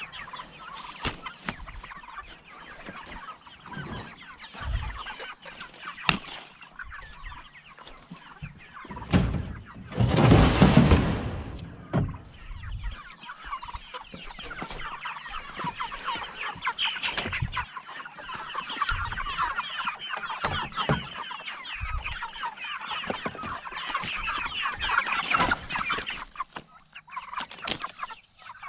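A flock of white broiler chickens clucking and chattering, growing busier from about thirteen seconds in, with short knocks of plastic crates. About ten seconds in there is a loud noisy rush lasting a second and a half.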